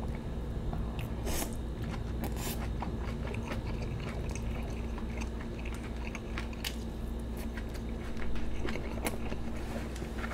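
Close-miked chewing of a mouthful of braised saury and kimchi, with many scattered short mouth clicks and crunches.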